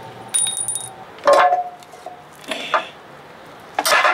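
Metal parts clinking and rattling in four separate bursts, some with a brief metallic ring, as loose bolts and tools are handled on an outboard motor's powerhead.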